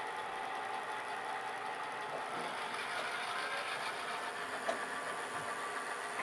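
HO-scale Santa Fe diesel locomotive's sound decoder playing a steady diesel engine sound through the model's small speaker as the train runs, with the model's running noise on the rails underneath; a light click about four and a half seconds in.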